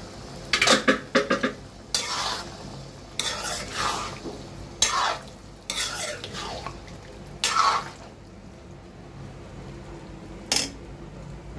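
Steel spoon stirring and scraping boiled peas and potatoes through masala in a metal kadhai: a run of short scrapes against the pan, stopping about eight seconds in, with one more stroke near the end.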